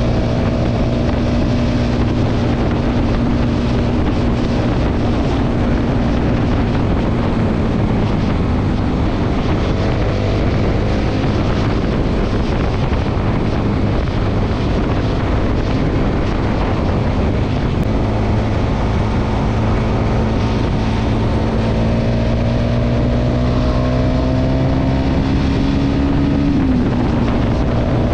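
Small two-wheeler engine running at road speed under heavy wind noise on the microphone. Its pitch climbs slowly near the end, then drops suddenly.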